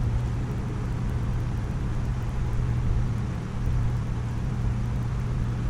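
Propane burner running steadily under a cast iron disco wok during seasoning: an even low hum with a rushing hiss.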